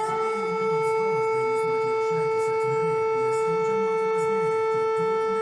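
Civil defense warning siren holding one steady tone.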